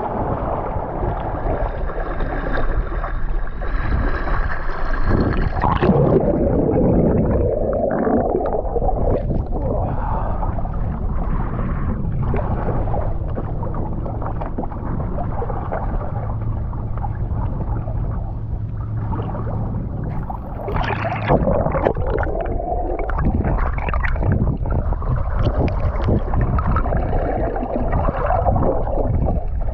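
Small boat on the water: water gurgling and sloshing around the hull with a continuous low motor rumble, surging irregularly.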